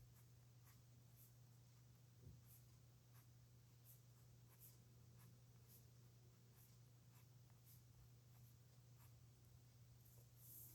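Faint scratching of a pen nib writing on paper: short strokes about three every two seconds, over a steady low electrical hum.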